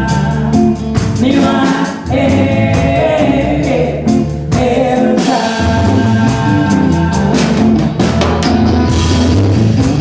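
Live ragga band playing, with sung vocals over a steady drum beat.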